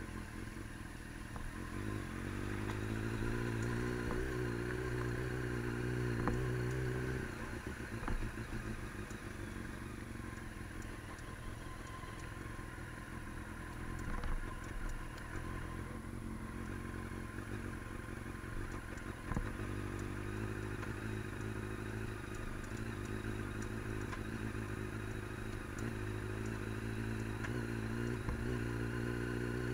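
Motor vehicle engine pulling away and accelerating, its pitch rising for several seconds and then dropping at a gear change about seven seconds in. It runs lower and rougher through the middle, with a few clattering knocks, and climbs in pitch again over the last ten seconds.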